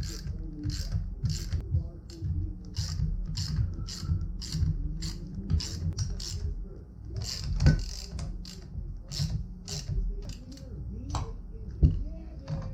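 Ratchet wrench worked back and forth in quick strokes, each swing a short clicking rasp, about two a second, slowing and growing sparser later on. Near the end comes a single sharp metallic knock.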